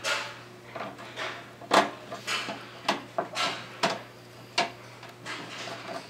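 Motherboard being screwed down to the standoffs of a metal PC case: irregular metallic clicks, scrapes and knocks of the screwdriver, screws and hands against the case, the loudest a sharp knock a little under two seconds in.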